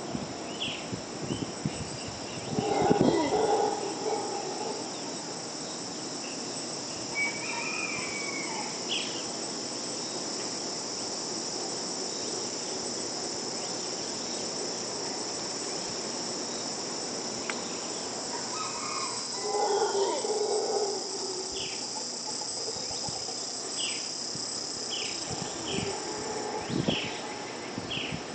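A steady high drone of insects with scattered short bird chirps, and two louder bouts of howler monkeys roaring, about three seconds in and again about twenty seconds in. The monkeys are mantled howlers.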